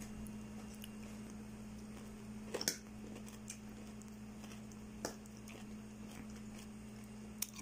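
Quiet room with a steady low hum, broken by a few light clicks of a metal fork against a ceramic bowl, the clearest about two and a half seconds in.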